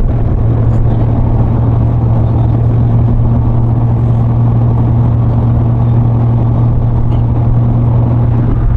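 Steady low drone of a moving road vehicle, an unchanging hum with road noise.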